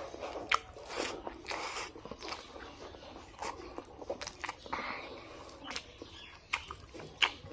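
A person eating rice and pork curry by hand, close to the microphone: chewing with wet mouth clicks and smacks at irregular intervals.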